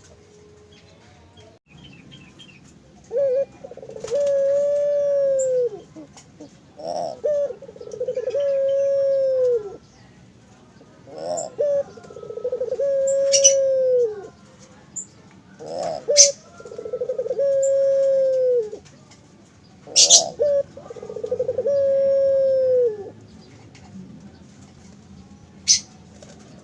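Puter (Barbary dove) cooing: five repeated coos about every four seconds, each a short rough note followed by a long drawn-out note that drops in pitch at its end. Small birds chirp faintly in between, with a few sharp clicks.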